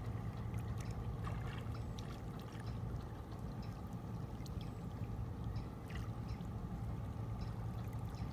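Water sloshing and dripping as a cast net is hauled in and gathered by hand in waist-deep river water, with many small splashes and drips, over a steady low rumble.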